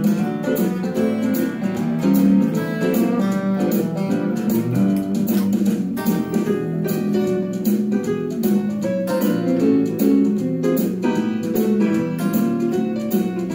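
Western swing instrumental: an electric guitar plays quick single-note lines over a band with a steady drum beat.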